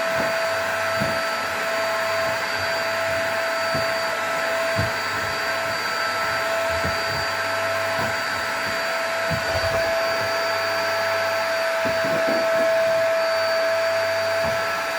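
Vacuum cleaner running steadily, a constant motor whine over a broad rushing hiss, with occasional low bumps.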